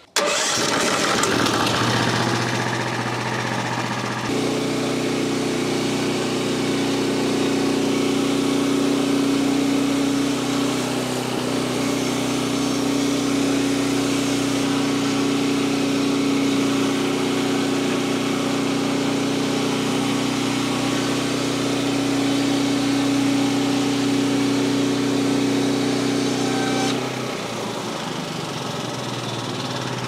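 Portable band sawmill starting up and sawing lengthwise through a log: a steady machine drone that grows heavier about four seconds in as the blade takes the cut, then lightens about three seconds before the end as the cut finishes and the mill runs on unloaded.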